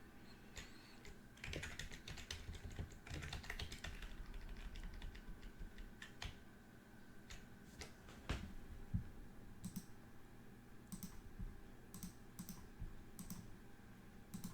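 Typing on a computer keyboard: quick runs of keystrokes in the first few seconds, then separate sharp clicks spaced out through the rest.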